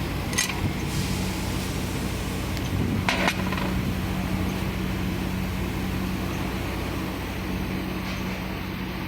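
A steady, low machine hum with two short, sharp clinks, one about half a second in and one about three seconds in.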